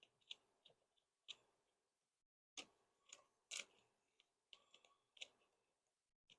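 Faint, irregular clicks and light taps, about ten of them: hand tools and small parts being handled while battery leads are connected.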